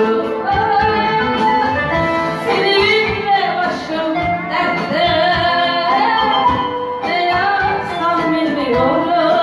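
A woman singing a Turkish song over instrumental backing, her voice gliding up and down through sustained phrases.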